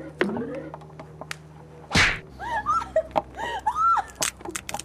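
Playful scuffle between young people: a sudden burst of noise about two seconds in, then a run of short high-pitched squeals and laughter, with a few sharp clicks.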